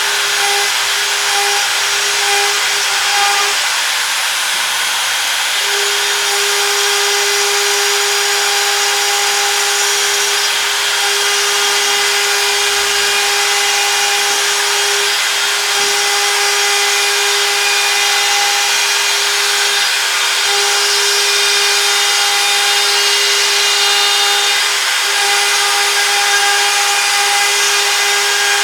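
CNC router spindle running and cutting: a steady high whine over a loud, even hiss, the whine dropping out for moments now and then.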